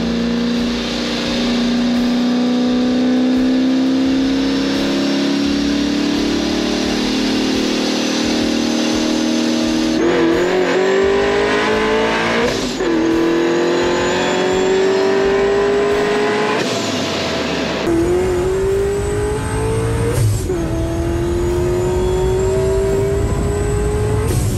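Procharger-supercharged Corvette C7 V8 accelerating hard, heard from inside the cabin. The engine note climbs slowly at first, then runs through full-throttle pulls in which the pitch rises steadily and drops sharply at each upshift, about ten, thirteen and twenty seconds in. A faint high whine climbs with the revs.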